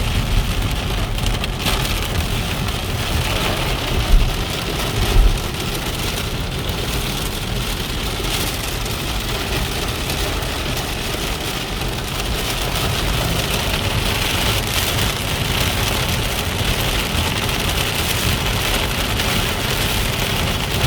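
Heavy rain pelting a car driving on a motorway, over steady tyre and road noise, with two short low thumps about four and five seconds in.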